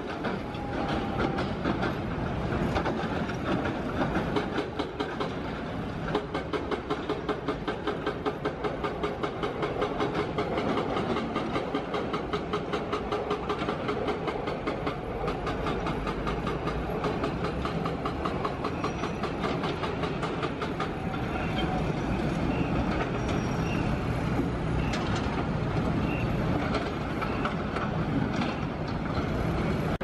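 Commuter trains running on the elevated tracks, wheels clacking in a fast, steady rhythm over the rail joints, with the general noise of excavators working beneath.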